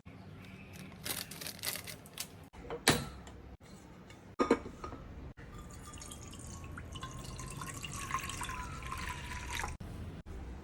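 A few knocks and clatters of kitchen utensils, then water running into a cooking pot for about four seconds, stopping sharply near the end.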